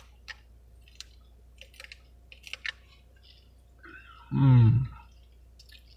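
A drink being sipped from a cup of iced soda, with scattered soft clicks and rattles of the cup, lid and ice. About four and a half seconds in comes one short, loud vocal exhale, a satisfied sound after the swallow.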